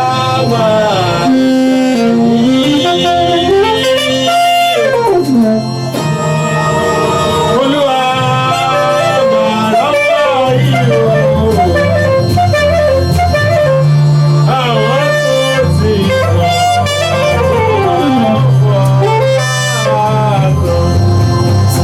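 Music: a melodic lead line sliding up and down in pitch over steady held bass notes.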